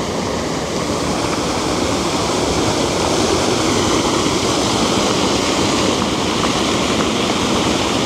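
Water rushing down the stone steps of the Trusetal Waterfall, an artificial cascade fed by a diverted stream, heard close to the falling water as a steady, loud rush.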